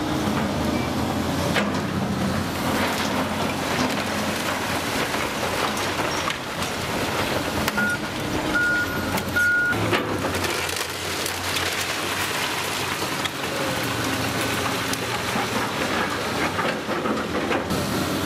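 Caterpillar 328C hydraulic excavator running while its bucket pushes over a brick masonry tower, bricks and rubble crashing and clattering down onto the debris pile, with several sharp impacts. A few short high beeps sound around the middle.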